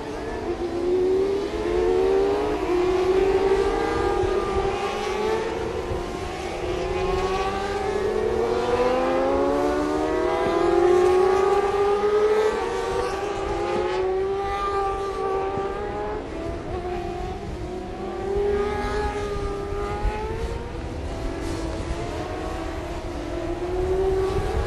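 Several 600 cc supersport racing motorcycles running together at full race pace, their engine notes overlapping and repeatedly rising as they accelerate, then dropping away.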